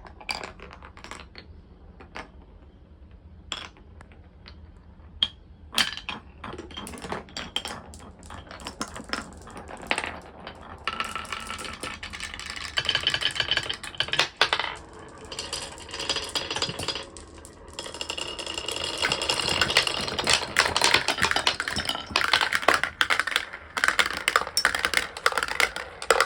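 Marbles rolling and clicking down a wooden marble run: a few separate clicks at first, then from about ten seconds in a dense, louder clatter of many marbles knocking along the track and against each other, with some ringing tones.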